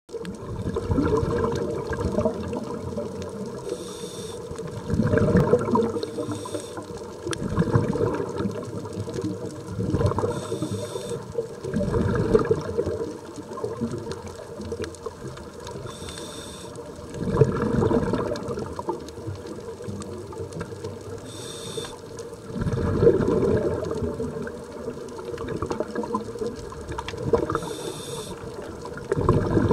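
Scuba regulator breathing heard underwater. About every six seconds there is a short hiss as air is drawn in, followed by a longer, louder bubbling rush of exhaled air.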